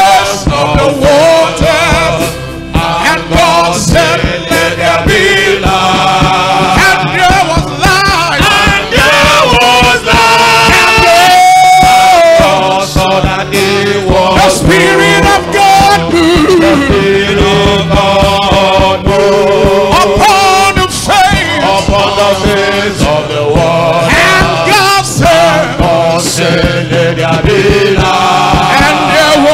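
Men's choir singing a gospel praise song into microphones, several voices together, over instrumental backing with a steady beat and bass.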